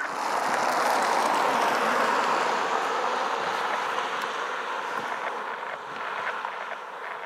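CPKC freight train passing: a steady rush of wheels on rail that comes up suddenly at the start, is loudest for the first couple of seconds, then slowly eases, with scattered light clicks.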